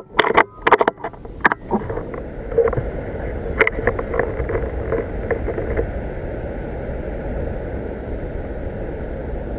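A few sharp clicks and knocks in the first second and a half, then a steady rushing background noise with a faint hum.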